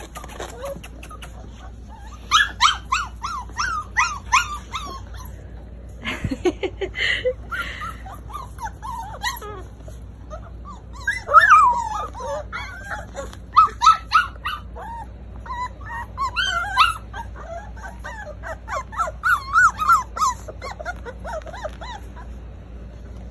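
A litter of black Labrador retriever puppies whining and yipping: bouts of many short, high-pitched cries with short pauses between, going quiet near the end.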